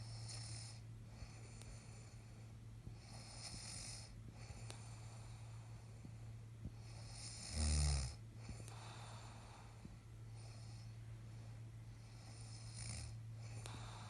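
A man snoring in his sleep, one breath about every three seconds, with one much louder, deeper snore about halfway through. A steady low hum runs underneath.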